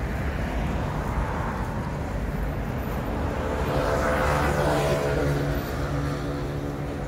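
City street traffic: a steady rumble of engines and tyres, with a city bus passing close by, its engine hum building to the loudest point about four to five seconds in, then easing off.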